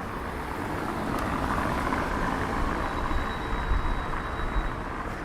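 A car passing on a wet street: tyre hiss and engine rumble swell up, then ease off a little, with a faint high whine for a moment partway through.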